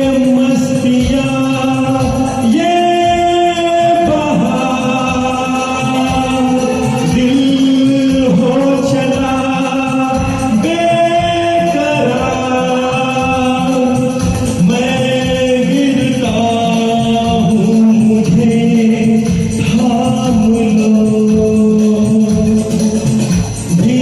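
Music from a Hindi film song performed to a karaoke backing track: a melody of long held notes, one to two seconds each, with singing.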